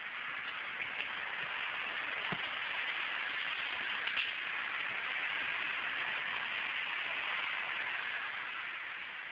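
Steady hiss of a phone camera's microphone recording outdoors, with one dull thump about two seconds in.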